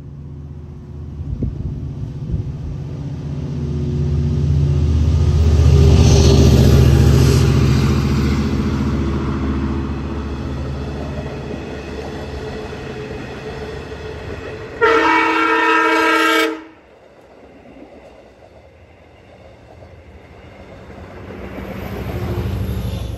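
Long Island Rail Road diesel train passing close by, its engine and wheels building to a loud rumble about six seconds in and then easing off. A little past the middle comes one horn blast of under two seconds that cuts off sharply. Near the end a second train's rumble swells up again.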